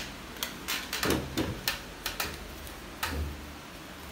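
Irregular sharp clicks and light taps, a few a second, with a brief low rumble about a second in.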